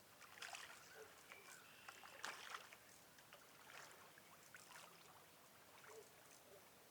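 Faint, intermittent water splashing and rustling from a hooked channel catfish being reeled in to the bank.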